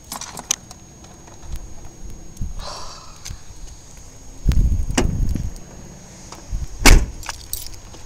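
Someone climbing out of a car, with small clinks and rustling from handling. There is a stretch of low rumbling about halfway, then the car door shuts with a single loud thump near the end.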